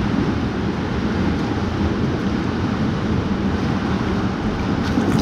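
Pool water splashing and rushing as a swimmer swims freestyle toward the wall, with water washing in the gutter close to the microphone: a steady wash of water noise.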